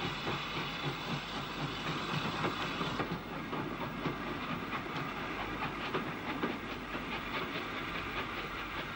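Steam train passing close: a WT class 2-6-4T tank engine working away with its exhaust beating for the first few seconds. Then the coaches rumble by with a regular clickety-clack of wheels over the rail joints.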